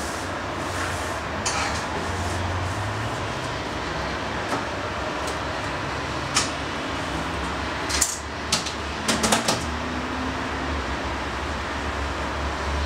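Steady background noise with a low hum, broken by scattered sharp clicks, with a quick cluster of them about eight to nine and a half seconds in.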